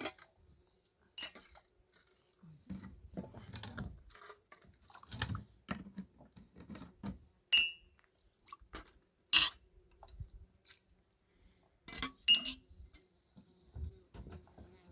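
Dishes being handled, knocking and clattering irregularly, with a few sharp, ringing clinks.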